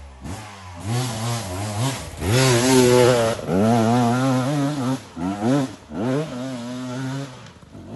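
Single-cylinder off-road motorcycle engine revving hard in about five repeated bursts, the pitch rising and falling with each blip of the throttle.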